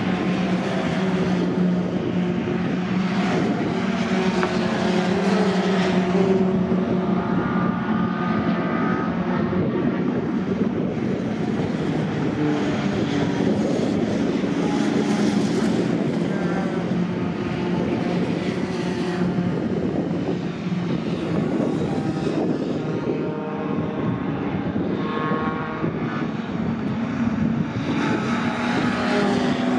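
Engines of racing pickup trucks running hard on a circuit, several at once, with engine notes that rise and fall as the trucks accelerate and lift off through the corners.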